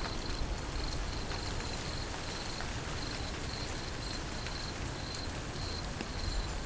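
Steady rain falling, with scattered drop ticks, while an insect chirps at a high, thin pitch about twice a second.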